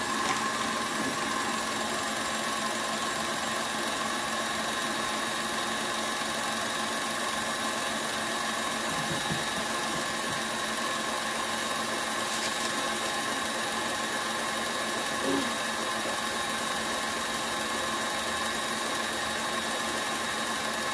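KitchenAid Classic stand mixer running with a steady hum, its beater turning through dry, powdery bath bomb mix.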